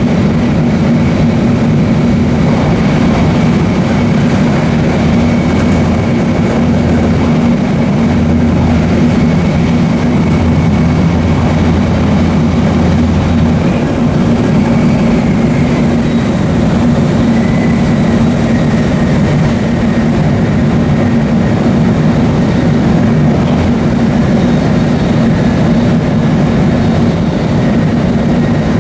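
Shinkansen bullet train running at speed, heard from inside the car: a steady, loud low rumble and running noise that holds level throughout, its deepest hum easing about halfway through.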